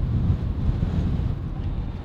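Wind buffeting the microphone of a camera moving along the road: a loud, low, fluttering rumble that rises and falls unevenly.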